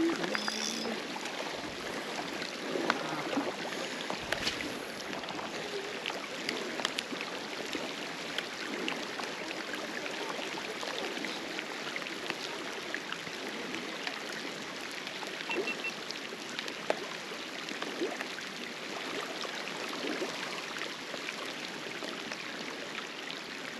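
Rain mixed with small hail falling steadily, a dense patter of countless tiny ticks with no let-up.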